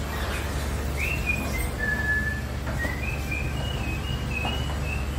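A string of short, clear whistled notes, each held briefly at a different pitch like a simple tune, starting about a second in, over a steady low hum.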